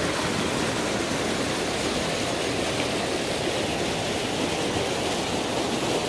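Mountain stream water gushing over rocks in a small cascade, a steady rushing noise.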